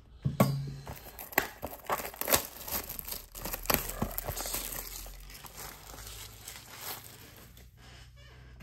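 Plastic shrink wrap being torn and crumpled off a sealed trading-card hobby box: a busy run of sharp crinkles and crackles that thins out near the end.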